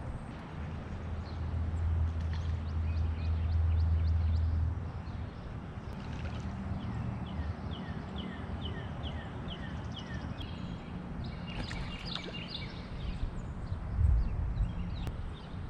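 Water lapping and gurgling against a kayak hull, with a low rumble for the first few seconds. A bird sings a run of short falling notes in the middle, followed by a busier burst of chirping, and there is a low thump near the end.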